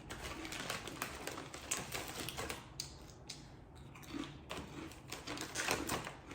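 Close-up chewing and mouth sounds: a rapid run of small, moist clicks as food is chewed.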